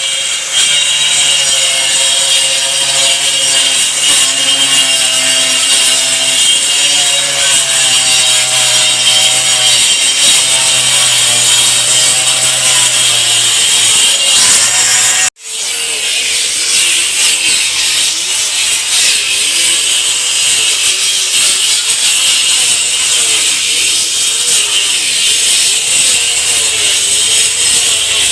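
Power saw cutting through wooden floorboards, running steadily under load; it stops for a moment about halfway through, then starts cutting again.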